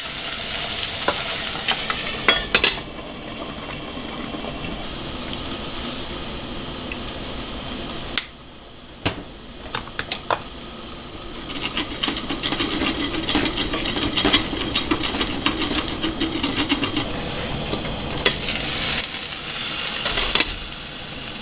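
Food sizzling in a frying pan, with frequent small clicks and scrapes of a utensil stirring it. The hiss drops away and comes back a few times.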